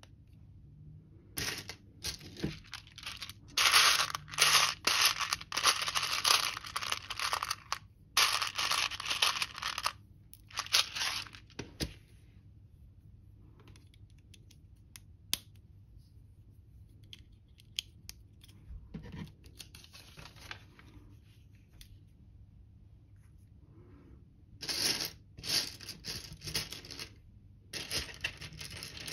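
Loose plastic LEGO pieces clattering and rattling as a hand sifts through a tray of them. The clatter comes in a long stretch in the first half and another near the end, with a quieter spell between them of scattered small clicks as bricks are fitted together.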